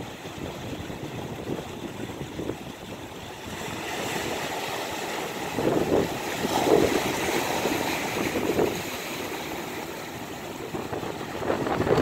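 Small sea waves washing in over flat rock ledges and draining back between the rocks, with a larger surge breaking into foam about five seconds in and another building near the end.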